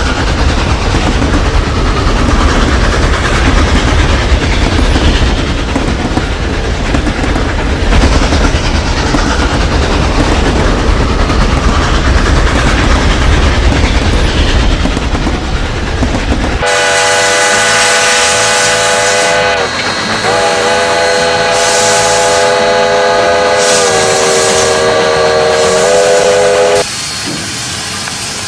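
Train running with a heavy, steady rumble, then a long chime whistle blast about two-thirds in: it breaks off briefly, sounds again, steps down slightly in pitch and cuts off shortly before the end, leaving a quieter running sound.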